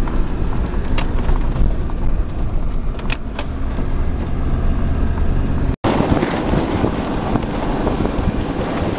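Off-road vehicle's engine running under load as it pushes through deep snow, heard from inside the cabin, with a few sharp knocks. After a brief dropout about six seconds in, a louder rushing noise takes over.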